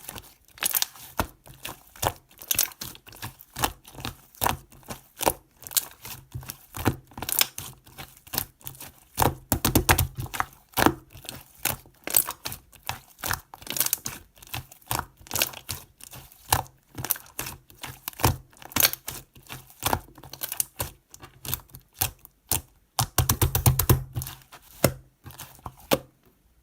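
Rapid, irregular clicking and tapping of small hard objects, with two denser, heavier clattering stretches about ten seconds in and near the end.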